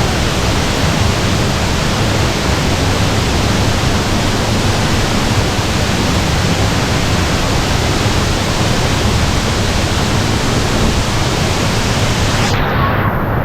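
Sgwd yr Eira waterfall pouring down close by, a loud, steady rush of falling water. About a second before the end the high hiss drops away suddenly.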